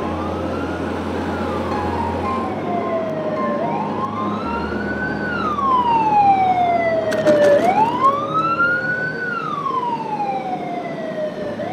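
Emergency-vehicle siren sounding a slow wail, three times rising over about a second and a half and falling over about two and a half seconds, over steady engine and road noise. A brief sharp crackle about seven seconds in.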